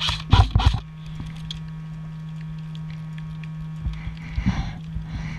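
Three quick semi-automatic shots from an electric airsoft rifle, about a third of a second apart, then softer rustles and knocks about four seconds in, over a steady low hum.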